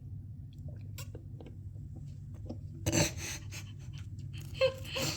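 Small handling noises, scattered clicks and rustles, with two short louder rustling scrapes about three and four and a half seconds in, over a steady low room hum.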